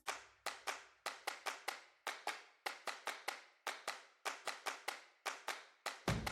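A quick, uneven run of sharp clap-like clicks, about five a second, each dying away fast, with no other sound between them.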